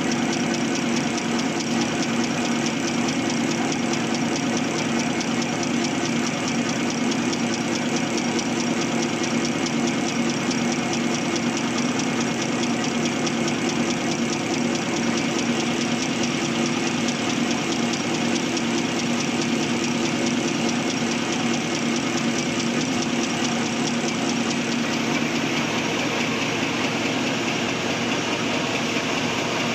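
XY-OQ-7000K double-deck automatic serviette folding machine running steadily in production, a continuous mechanical clatter with a fast, even rhythm from its folding and cutting mechanism.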